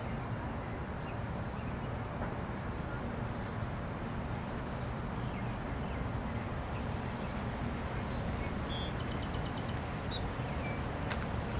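Steady low outdoor rumble with no clear single source, and a small bird chirping a quick run of high notes about nine seconds in.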